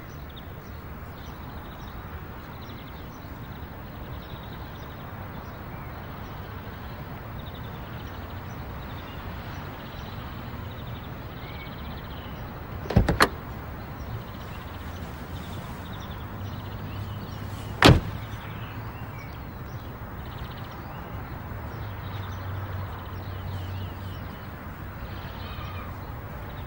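Car door opened with a quick double click of the latch about halfway through, then shut with a single sharp thunk a few seconds later, over a steady low background hum.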